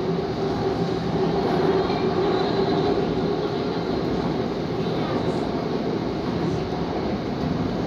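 LRT-2 light-rail train running at speed, heard from inside the passenger car: a steady rumble of wheels on rail with a low hum, a little stronger in the first few seconds.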